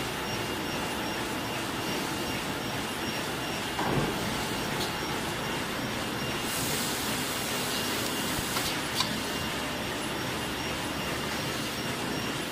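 Pocket tissue packing machine running with a steady mechanical clatter. A thump comes about four seconds in, a hiss lasts about two seconds in the middle, and a sharp click follows near nine seconds.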